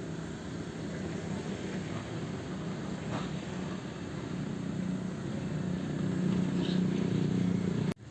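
Sumitomo excavator's diesel engine running steadily, growing louder over the last two seconds, then cutting off abruptly near the end.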